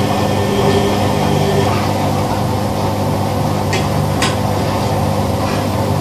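Old front-loading washing machine running, its motor humming steadily as the drum turns the laundry, with two short knocks a little over halfway through.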